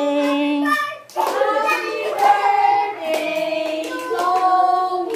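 A group of people, children among them, singing a birthday song together while clapping along in time, with a short break between lines about a second in.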